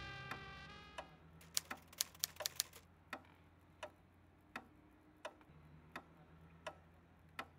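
Faint, steady clock-like ticking, about three ticks every two seconds, with a quick flurry of clicks about one and a half to two and a half seconds in, over a faint low hum.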